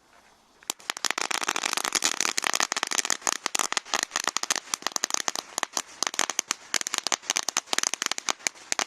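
Firework crackling: a dense, irregular stream of sharp pops that starts about a second in and goes on without a break.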